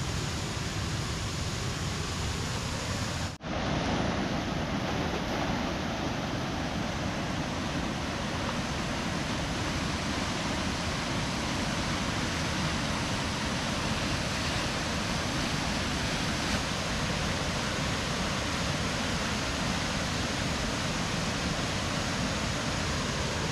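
Steady rush of muddy floodwater pouring over a river weir and churning below it. The noise drops out for an instant about three seconds in.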